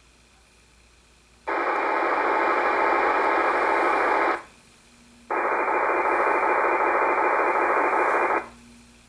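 Icom IC-R8500 receiver scanning in FM mode, stopping twice on digital transmissions, each heard as about three seconds of steady data noise. Each one cuts in and out abruptly, with quiet gaps between.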